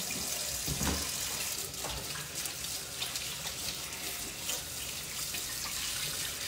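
Kitchen tap running steadily into the sink, with a few faint knocks.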